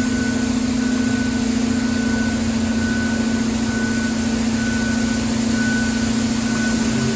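Job-site engine running steadily with a constant low drone and a fainter high whine that comes and goes.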